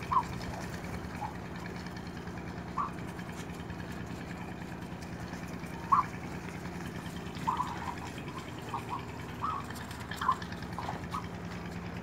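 Young ostrich chicks giving short, scattered chirping calls, the loudest about halfway through, over a steady low hum.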